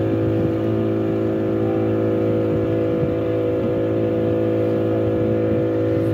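Outboard motor pushing a wooden canoe at steady cruising speed, a constant even drone, with water rushing along the hull.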